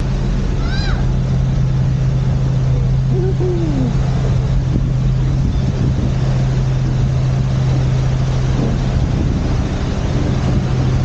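Passenger ferry's engines droning with a steady low hum, with wind rumbling on the microphone on the open deck.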